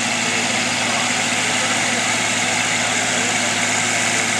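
John Deere four-wheel-drive farm tractor's diesel engine idling steadily as the tractor rolls slowly toward the pulling sled.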